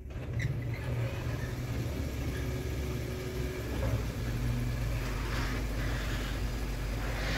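A double garage door rolling open on its opener, with a steady low rumble throughout, while a Ford F-150 pickup's engine idles inside.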